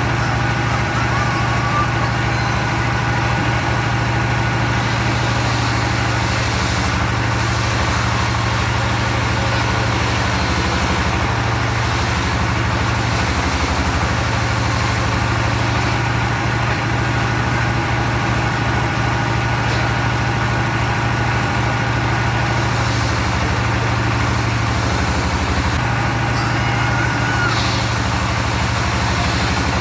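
The engine of a circular-saw log sawmill running steadily at an even speed, a deep constant hum.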